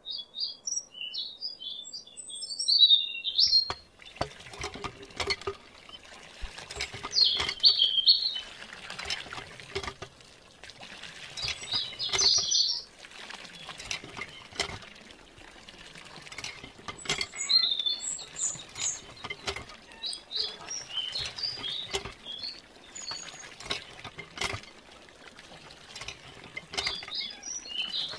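Birds chirping in short runs throughout. From about four seconds in, a thin stream of water pours and splashes into a small plastic tub from a miniature toy hand pump, with many small clicks and patters.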